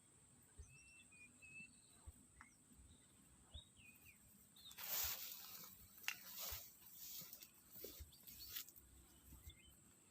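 Swamp ambience: a steady high-pitched insect drone with a few short bird chirps, and several brief noisy handling sounds around the middle.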